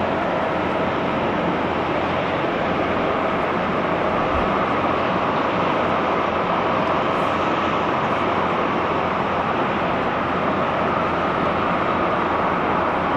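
Airbus A330-300's twin Pratt & Whitney PW4168A turbofans at takeoff thrust during the takeoff roll: a steady, unbroken jet noise.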